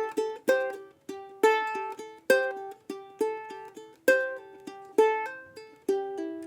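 Background music: a plucked ukulele melody, single notes struck about twice a second, each ringing out and fading.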